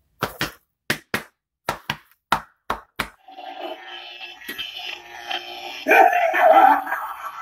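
About ten sharp knocks on a door, struck in pairs, then a knock-activated grim-reaper skull door decoration switches on and plays its sound effect: a continuous rough, pitched sound that is loudest about six seconds in.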